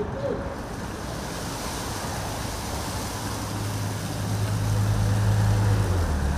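Wind rushing over the microphone, with the low hum of an engine that grows louder and then drops in pitch near the end, as a passing vehicle does.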